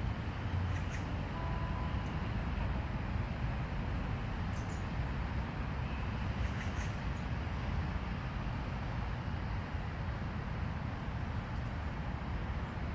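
Steady low background rumble with a few faint, brief clicks.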